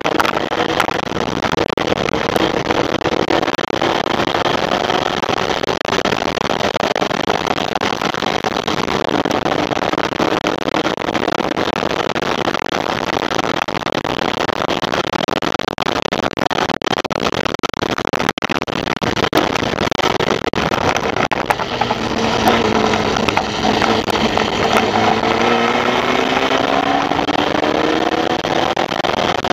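Formula Vee race car's air-cooled Volkswagen flat-four running hard at racing speed, heard from the open cockpit over a loud rush of wind and road noise. The engine note drops in the first couple of seconds, then about three quarters of the way through climbs steadily as the car accelerates.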